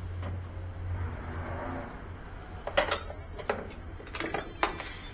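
Metal hand tools clinking and knocking against the lawn tractor's engine parts, a string of sharp clicks in the second half, over a steady low hum.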